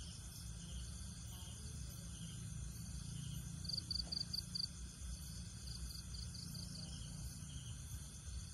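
Outdoor ambience: a high chirping call comes in runs of five to seven quick chirps, several times, over a steady low rumble.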